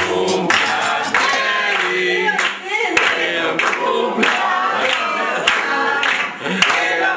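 A group of people singing together and clapping along in time, with sharp claps at a steady beat.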